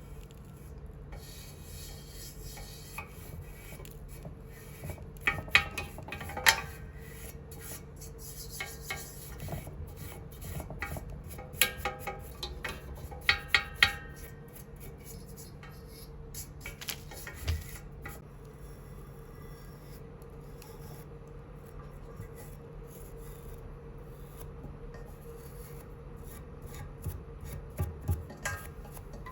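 Hand scrubbing and rubbing on a brass samovar, with two clusters of short ringing clinks of brass being knocked or handled, about five seconds in and again around twelve seconds in.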